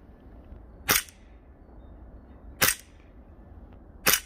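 Three sharp shots from a Sarsılmaz SAR 9 airsoft pistol, fired one at a time roughly a second and a half apart.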